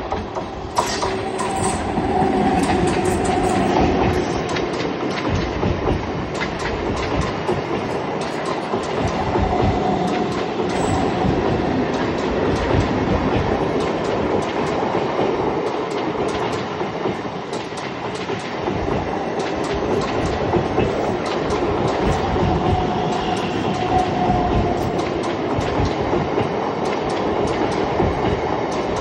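DEMU (diesel-electric multiple unit) passenger train running on the line, its wheels clicking steadily over the rail joints.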